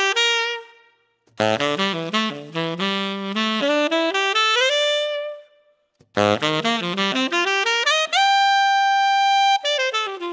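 Selmer Mark VI tenor saxophone with a custom MBI-replica mouthpiece and Vintage Classic ligature, played solo in fast rising runs. There are three phrases with short breaths between them; the last climbs to a long held high note about eight seconds in, then runs back down.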